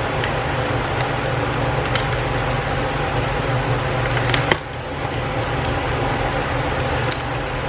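Small sharp clicks and light scraping from prying at a stuck part inside an iPad, the sharpest click about four and a half seconds in, over a steady low hum.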